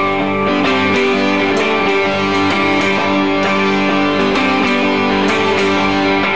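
Britpop band playing live, guitar-led music with strummed guitars over bass, at a steady level.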